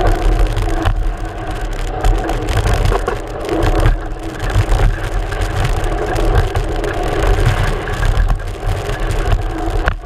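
Mountain bike running fast down a dirt trail, heard from a camera mounted on the front fork: steady wind rush and tyre rumble with frequent knocks and rattles over rough ground.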